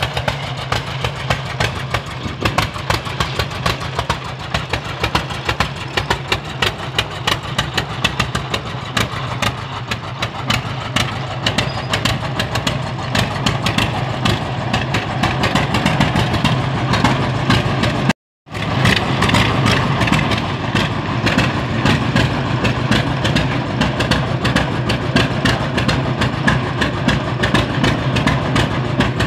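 1926 John Deere Model D tractor's two-cylinder horizontal engine running while the tractor drives slowly, a rapid, even run of exhaust pops. The sound cuts out for an instant about 18 seconds in, then the same popping carries on.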